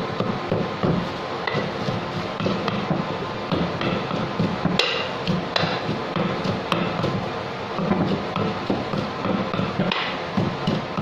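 Wooden pestle pounding soft chopped ingredients in a clay mortar: a steady rhythm of dull thuds, a few a second, with a few sharper knocks.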